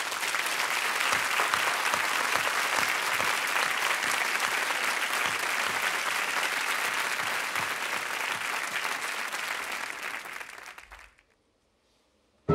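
Audience applauding steadily, then dying away about eleven seconds in.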